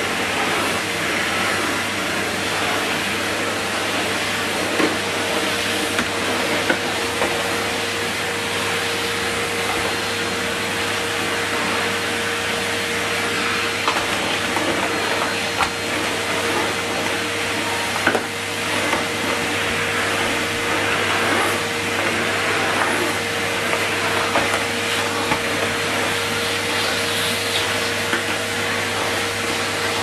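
Numatic Henry Turbo cylinder vacuum cleaner running steadily as its floor tool is pushed over carpet. A steady whining note comes in about five seconds in, and there are a few light knocks.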